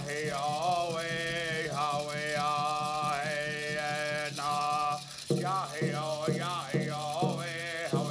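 A male singer chanting a Zuni deer dance song in long held, gliding notes over a hand drum beating steadily about twice a second, the drum plainest in the second half.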